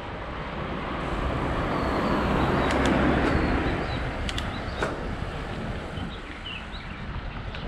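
A vehicle going past, its rushing noise swelling to a peak about three seconds in and then fading. Birds chirp faintly near the end.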